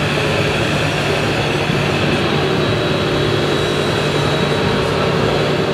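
Remote-controlled scale model tipper truck driving: a steady mechanical drone with a low hum.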